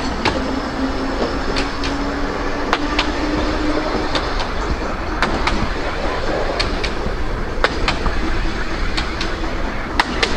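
Narrow-gauge tram running along its track, heard from on board. The wheels click over the rail joints in quick pairs every second or two above a steady running rumble. A low hum fades out about four seconds in.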